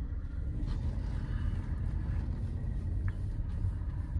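Hyundai HB20 1.6 heard from inside the cabin while driving: a steady low engine and road rumble, with one brief click about three seconds in.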